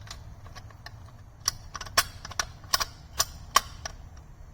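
Sharp clicks of a VW Jetta's transmission shifter selector shaft being slid up and down through its positions to find neutral: about six clicks roughly 0.4 s apart, starting about a second and a half in, over a faint steady low hum.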